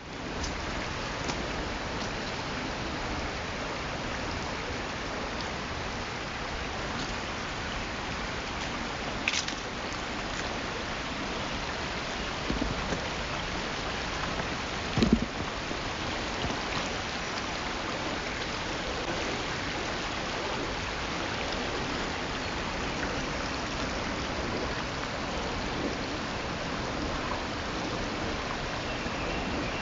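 Steady rush of flowing water, with a few brief knocks about a third and halfway through.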